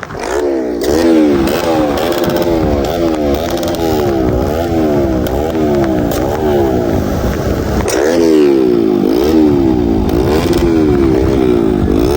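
Motorcycle engine revved hard in quick repeated blips, its pitch climbing and dropping back about twice a second, with a few sharp cracks from the exhaust.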